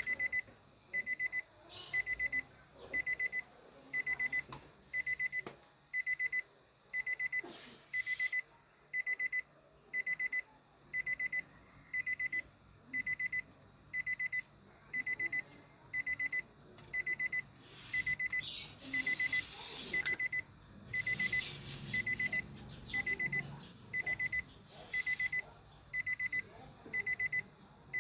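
A short, high electronic warning beep repeating evenly, about three beeps every two seconds, with scattered metallic clicks and clatter from tools and door parts being handled, busiest about two-thirds of the way in.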